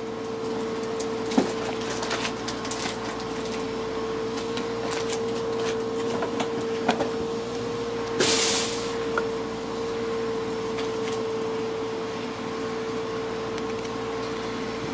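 Hands handling Panini Prizm foil packs and chromium trading cards: light clicks and rustles as cards are thumbed through, with a short rustling burst of wrapper about eight seconds in, over a steady hum.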